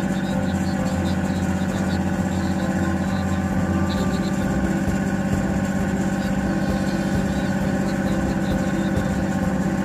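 A river launch's engine running steadily at a constant pitch, a low hum that does not change.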